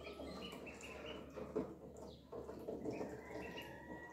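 Ducklings peeping over and over in short high calls, with one longer drawn-out peep near the end, over soft taps and small splashes as they move and feed in shallow water in a plastic tub.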